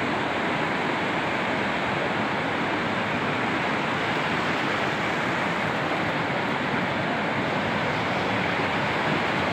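Fast-flowing mountain river rushing over rocks, a steady, unbroken noise.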